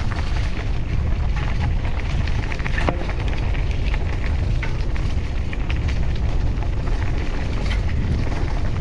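Dry leaves and brush crackling as someone moves along an overgrown trail, over a steady low rumble of wind and movement on the microphone.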